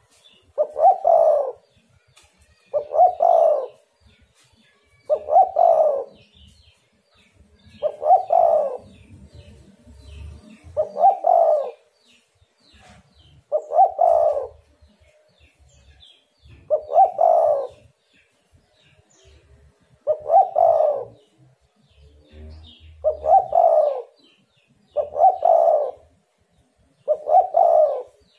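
Spotted dove singing its cooing song: a phrase of coos about a second long, repeated about every two to three seconds, eleven times.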